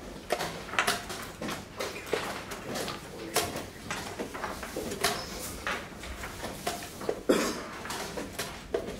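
Wooden chess pieces being set down on boards and chess clocks being pressed at several tables: a scattered run of sharp clicks and knocks, the loudest about seven seconds in.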